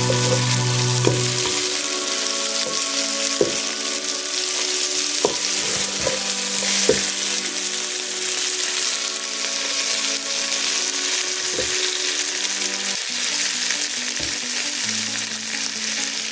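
Chicken karahi sizzling as it fries in oil in the pan, with a spatula knocking against the pan several times as it is stirred.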